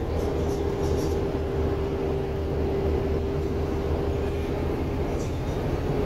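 Running noise of a moving road or rail vehicle heard from inside the cabin: a steady low rumble with a steady mid-pitched whine held throughout.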